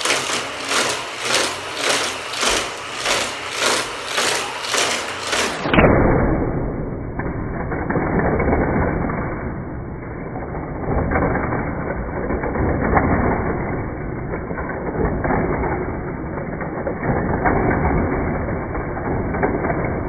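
Hot Wheels figure-8 loop track with its battery-powered booster running as die-cast cars are shot around the loops, pulsing a little under twice a second as the cars go round. About six seconds in, the sound abruptly turns muffled and becomes a steady running noise with small plastic clatters.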